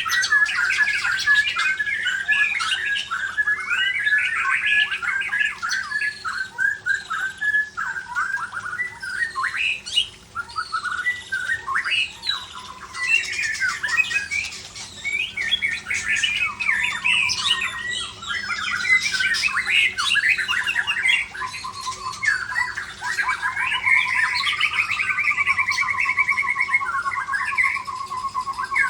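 White-rumped shama (murai batu) singing a long, varied song of rapid phrases, pouring out its learned mimicked repertoire. In the last third it changes to long, fast rattling trills.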